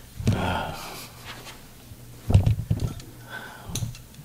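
A chiropractic spinal adjustment: the patient exhales sharply and gives a low groan, with a few short sharp pops from the joints being cracked.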